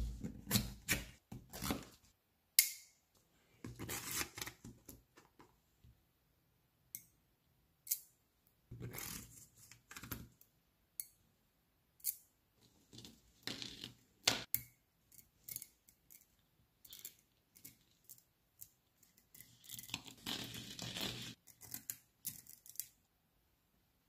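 Small neodymium magnet balls clicking and rattling as they snap together and are pulled apart by hand, in clusters of sharp clicks with short pauses between.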